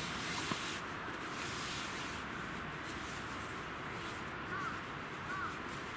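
Nylon sleeping bag rustling as it is pulled out and spread, over a steady hiss of rain. Near the end a bird calls several times in quick succession.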